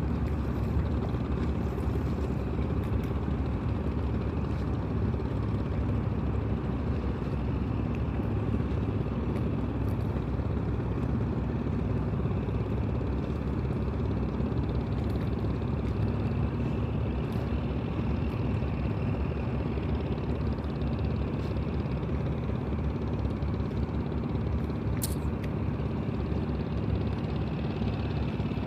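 Boat engine running steadily, a low drone with no change in pace.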